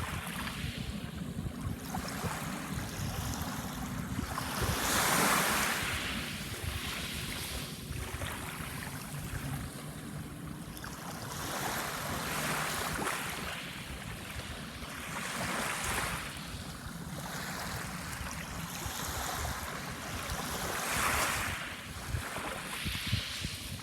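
Sea waves breaking and washing up on a sandbar shore, surging every four to five seconds, the biggest surge about five seconds in. A low wind rumble on the microphone runs underneath.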